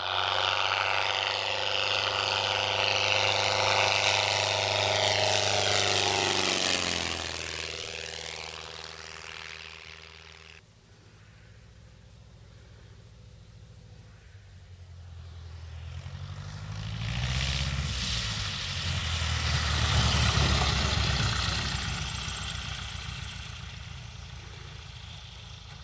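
Spacewalker II single-engine propeller plane flying low past, its engine-and-propeller note dropping in pitch as it goes by. After a cut the engine is quieter, then revs up, rising in pitch and level about two-thirds of the way in before easing off.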